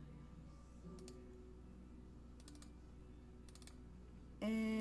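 Computer mouse clicking in a few short clusters while files are browsed and selected. A loud steady tone starts just before the end.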